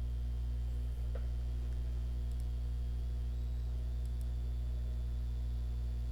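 Steady low electrical hum in the recording, with a faint click about a second in.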